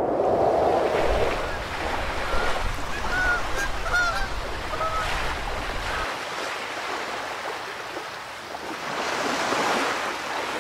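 Sea water washing against a rocky shore, with several short bird calls over it in the first half. After a cut about six seconds in, small waves lap over the rock, one washing in loudest near the end.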